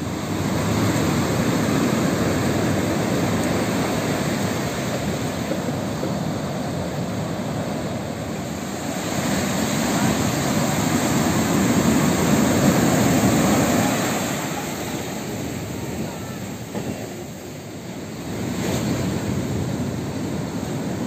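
High-tide surf: waves breaking and washing up the beach in a steady rushing noise. It swells to its loudest a little past the middle and eases briefly toward the end.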